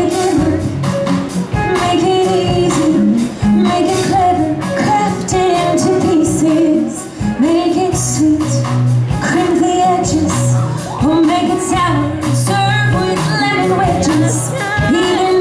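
A woman singing a Broadway show tune live into a handheld microphone, with a live band playing under her voice: steady bass notes and light percussion ticks.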